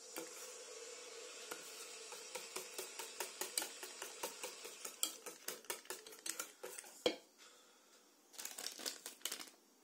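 Wire whisk beating thin batter in an enamel bowl, its wires clicking and scraping against the bowl in quick repeated strokes. There is one sharper knock about seven seconds in, then a short flurry of clicks.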